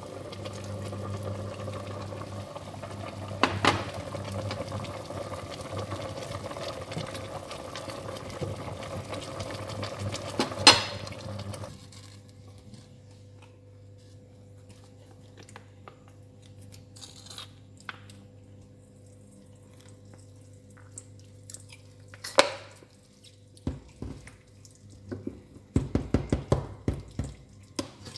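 Kitchen sounds of water and cookware. A steady watery noise runs for about twelve seconds, broken by two sharp clinks, then stops abruptly. After that come quieter handling sounds with scattered knocks of pots and utensils, several in quick succession near the end.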